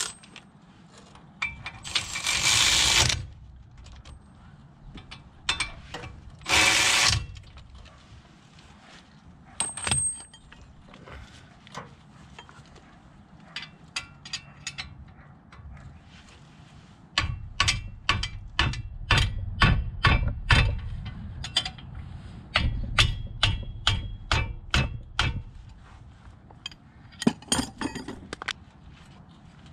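Cordless electric ratchet running in two short bursts, followed by a long run of quick ratchet clicks as the brake hardware's fasteners are worked by hand.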